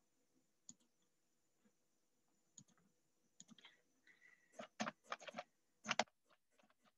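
Faint computer keyboard typing: a few scattered keystrokes, then quicker runs of clicks in the last couple of seconds.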